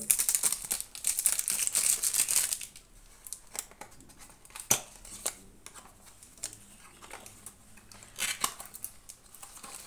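Clear cellophane wrap being torn and peeled off a cardboard perfume box, crinkling loudly for the first couple of seconds. It is followed by quieter handling of the film and box, with a few sharp crackles and clicks as the box flap is opened.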